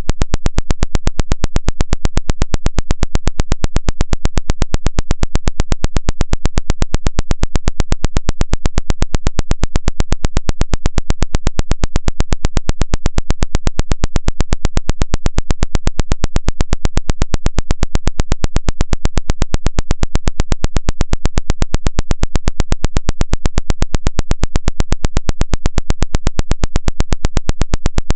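Synthetic 'water eject' vibration sound: a steady, unbroken train of rapid, evenly spaced pulses, several a second, played through the phone to shake water out of the charging port.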